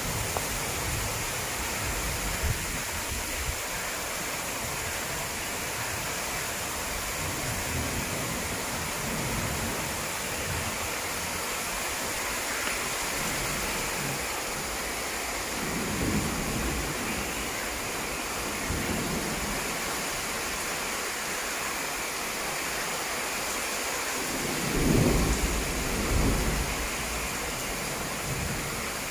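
Heavy rain falling steadily during a thunderstorm, with a few low rolls of thunder. The loudest roll comes about 25 seconds in.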